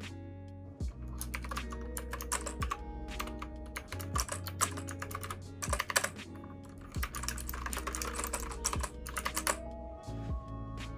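Typing on a KnewKey Chic mechanical keyboard: a fast, dense run of key clacks that starts about a second in and stops shortly before the end, over lo-fi background music.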